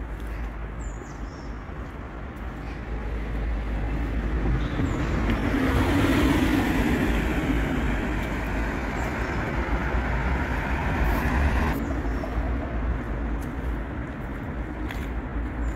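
Car driving past close by on a city street, its tyre and engine noise swelling to a peak about six seconds in, with the hiss cutting off suddenly about twelve seconds in, over a steady low rumble of street traffic.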